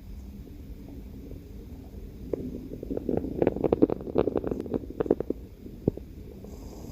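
Stomach growling: a low rumble that breaks, a couple of seconds in, into a quick run of gurgles and crackling pops, loudest around the middle, ending with one last pop.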